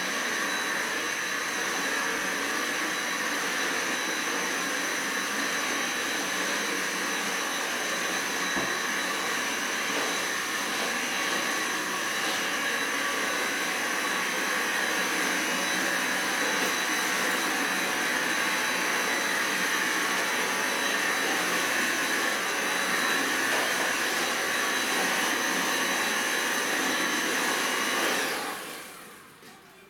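Cordless stick vacuum cleaner running steadily with a high whine, then switched off near the end, its motor winding down.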